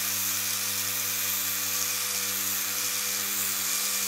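Mirka Ceros electric random-orbit sander with a 3-inch pad running steadily, sanding a stainless steel exhaust pipe with 600-grit paper: a constant motor hum under a bright hiss of abrasive on metal.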